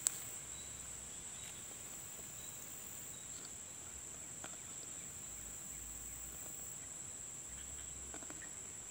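Insects chirring in a steady, high-pitched drone, with one sharp click right at the start.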